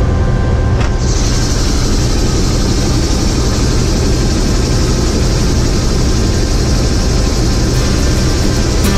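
Helicopter engine and rotor heard from inside the cabin: a loud, steady low drone, with a high hiss that comes up about a second in.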